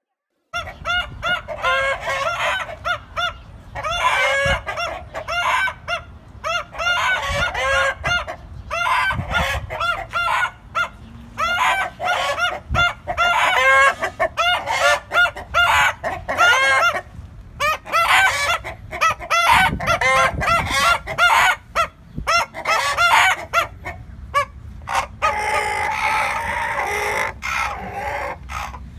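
Roosters crowing and chickens clucking, with pitched calls following one another in quick succession and sometimes overlapping.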